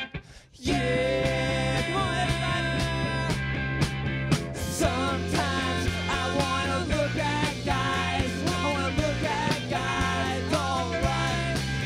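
Live rock band playing, with guitar, bass and drums, and a voice singing. The band drops out briefly and comes back in with a crash less than a second in.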